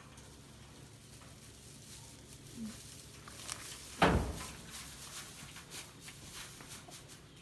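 Dry straw rustling and crackling as it is stuffed and packed by hand into a small wooden cage, with a single sharp knock about four seconds in.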